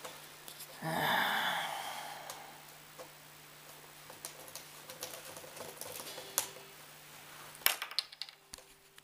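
Clicks and taps of small objects handled on a wooden tabletop, among them a plastic bottle cap, with a louder cluster of sharp clicks near the end. A short noisy rush comes about a second in, and a steady low hum sits under it all.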